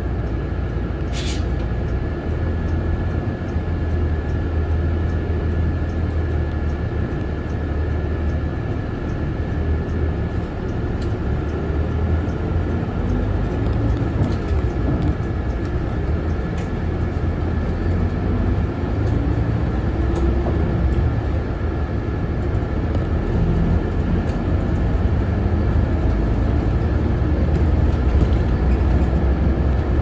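Route bus engine and road noise heard from inside the cabin: a steady low rumble with a faint steady high whine. Around the middle the engine note rises as the bus picks up speed.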